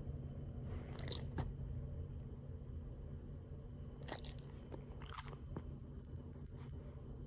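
Sleeping Boston Terrier's wet snoring, with bubbles crackling and popping at its nose and mouth. It comes in three short bursts, about a second in, around four seconds in and just after five, over a steady low hum.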